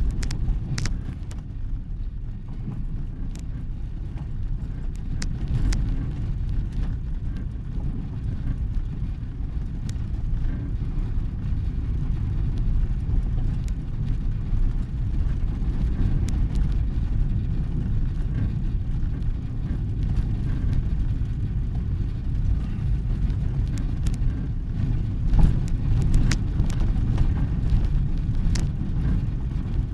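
Motor vehicle running with a steady low rumble, with scattered light clicks and knocks.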